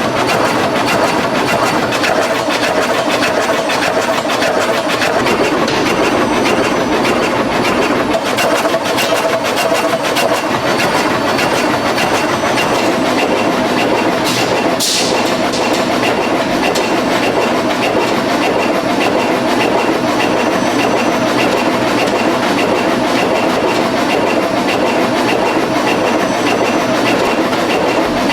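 Filter-production machinery running with a steady, fast mechanical clatter, and a brief hiss of air about halfway through.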